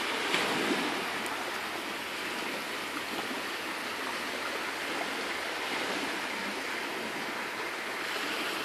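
Steady seaside noise of gentle waves and light breeze, with a couple of faint knocks in the first second.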